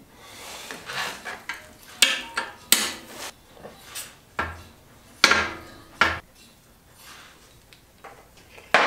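Sharp metallic clinks and clanks of pliers and a screwdriver against a motorcycle side stand and its coiled return spring as they are fitted to the frame. There are several separate strikes, and some ring briefly.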